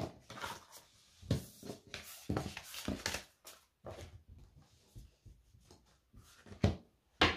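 Tarot cards being handled on a tabletop, gathered up and slid across the surface: a string of short, irregular rustles, slides and light taps.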